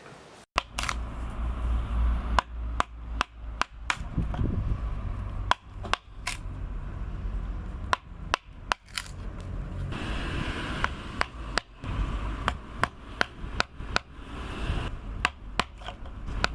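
Hammer blows struck at an uneven pace, about two dozen sharp knocks, some much louder than others, over a low steady rumble.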